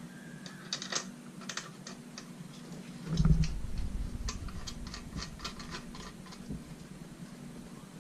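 Small irregular clicks and rattles of a metal nut being handled and threaded back by hand onto a Rainbow vacuum cleaner's motor, with a low thump about three seconds in.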